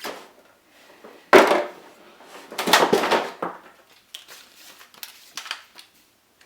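Handling noise as an airsoft rifle is lifted out of its cardboard box and packing: a sharp knock about a second in, then a louder spell of scraping and rustling, then a few small clicks.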